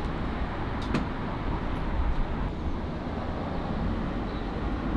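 Steady outdoor background rumble with no distinct event, and a faint click about a second in.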